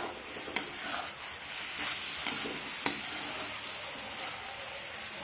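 Sarson ka saag being fried down in a metal kadhai, a steady sizzle as a metal spatula stirs and scrapes through the greens. Two sharp clinks of the spatula against the pan, about half a second in and about three seconds in.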